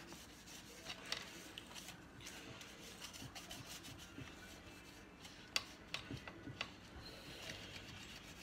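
Faint hand scraping and brushing at caked dirt on a chainsaw's engine housing and flywheel cooling fins, with scattered small clicks and taps.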